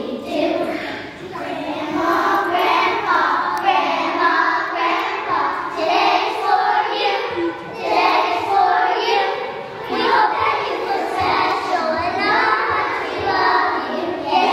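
A group of young children singing together as a choir, a continuous song with held notes.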